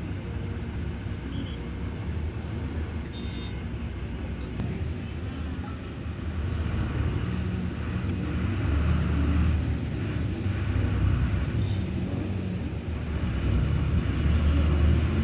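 Road traffic: motor vehicle engines running and passing, a low rumble that grows louder as vehicles come close about halfway through and again near the end.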